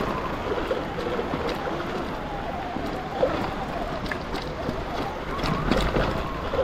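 Steady rush of wind over the microphone and tyre noise on wet ground while riding a Sur-Ron X electric dirt bike.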